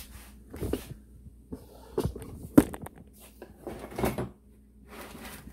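Irregular knocks and clinks of hand tools and metal engine parts being picked up and set down on a workbench, with one sharp knock about two and a half seconds in.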